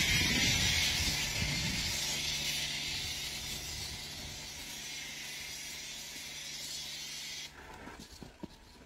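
Pressure-washer foam cannon spraying thick foam onto a truck cab: a steady hiss with a low hum under it, slowly getting quieter, then cutting off suddenly about seven and a half seconds in.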